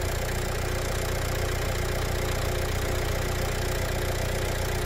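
Renault Kangoo's four-cylinder diesel engine idling steadily with an even, rapid beat; the engine is still cold.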